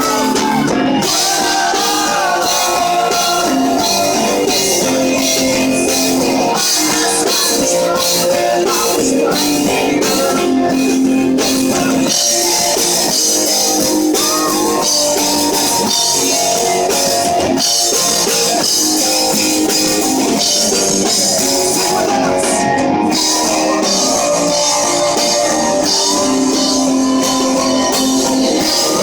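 Live rock band playing with electric guitars and a drum kit, a passage of the song with little or no lead vocal.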